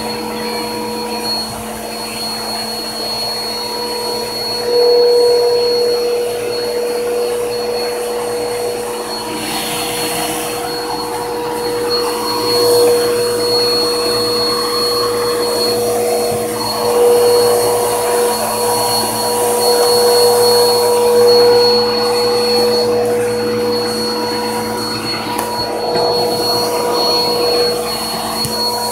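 Vacuum cleaner running continuously, a steady motor whine under its suction noise, swelling and easing in loudness every few seconds.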